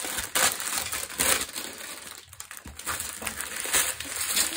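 Clear plastic packaging crinkling and rustling as a long cellophane sleeve of bagged diamond-painting drills is unrolled and handled. The rustling is irregular, with a short lull about halfway through.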